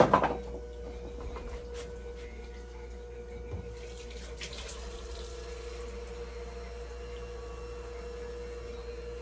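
Kitchen tap running into a measuring cup at the sink, with the flow heard most plainly about four seconds in, over a steady low hum.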